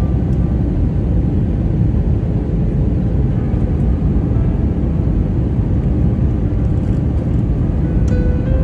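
Steady, even cabin noise inside an airliner descending to land: jet engines and airflow heard as a low rumble. Faint musical notes come in near the end.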